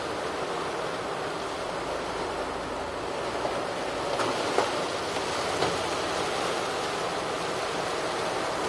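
Hard rain falling on a car's windshield and roof, heard from inside the cabin as a steady dense hiss with a few louder drop hits.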